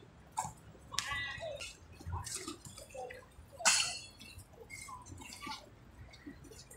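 Sounds of a basketball game on an outdoor hard court: sneakers squeaking and scuffing as players cut and jump, with the odd knock of the ball. Several short, sharp squeaks come at irregular moments, the clearest about a second in and again near the middle.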